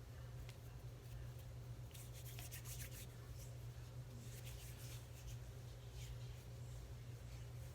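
Faint rubbing and scraping of hands working a soft aloe vera and baby powder dough, in short clusters of strokes, over a steady low hum.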